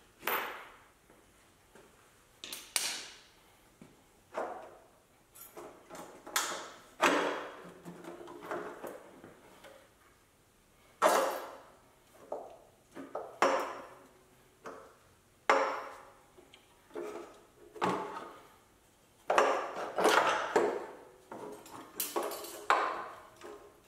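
Metal turbo piping and hand tools on a Toyota 2JZ twin-turbo engine clinking and clanking as the parts are worked loose: irregular sharp knocks, some ringing briefly.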